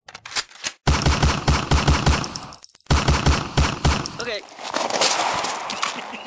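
Two bursts of rapid automatic gunfire, about four to five shots a second: the first lasts nearly two seconds, the second about one, followed by a fading rumble.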